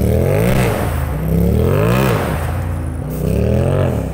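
Polaris RZR Turbo S engine revving up and falling back about three times as the side-by-side pulls away. It runs through a Flowmaster FX straight-through, fiberglass-packed muffler with a 4-inch tip, which gives a deep rumble.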